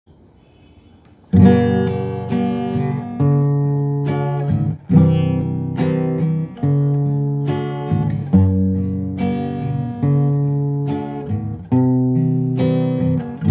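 An acoustic guitar played alone in a song's intro. Chords are strummed, starting about a second in, with a new chord struck every second and a half to two seconds and each one left to ring and fade.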